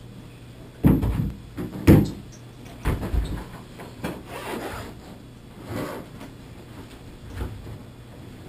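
Several short knocks and thumps, the loudest about one and two seconds in, then a few fainter ones, over a low steady hum.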